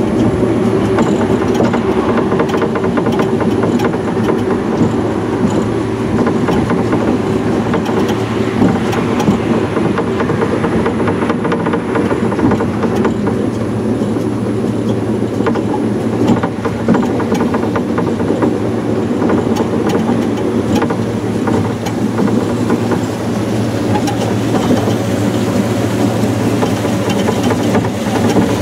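Small electrically powered monorail car running along its track: a steady electric hum and rumble of the running gear, with scattered clicks and knocks.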